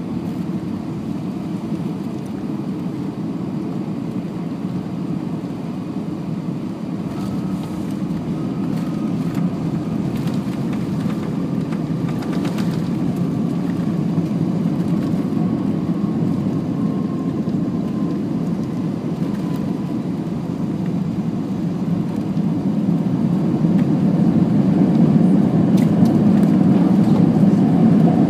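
Airbus A320 touching down and rolling out, heard from a cabin window seat behind the wing: a steady rumble of engines, airflow and wheels, with a few faint knocks in the first half as the wheels meet the runway and the spoilers go up. The rumble grows louder near the end.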